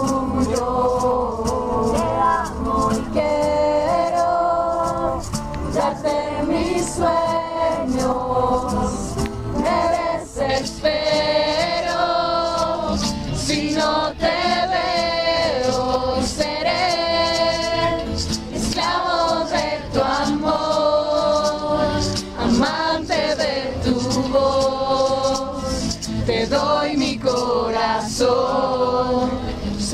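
Music with several voices singing together, steady throughout.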